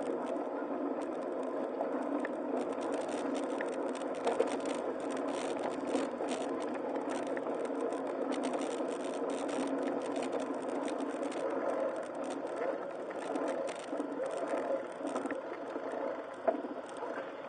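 Steady vehicle running noise with scattered clicks and rattles throughout.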